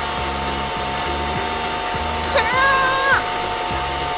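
A steady whirring, rushing noise like a small motor blower, over background music with a repeating low beat. A short, high-pitched vocal cry rises and then holds for under a second, about two and a half seconds in.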